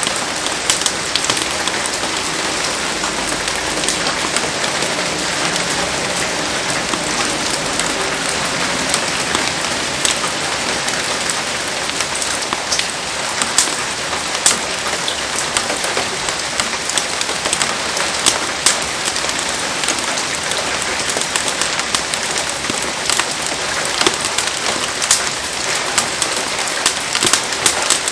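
Heavy rain falling steadily, with many sharp ticks of drops scattered through the hiss.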